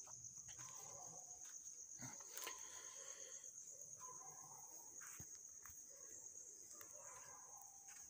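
Near silence: faint background with a steady, high-pitched whine and a few faint, distant calls.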